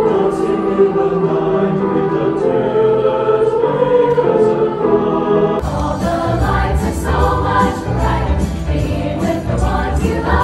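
High school choir singing a Christmas song at a concert. About halfway through, the sound changes abruptly to a fuller, bass-heavier passage.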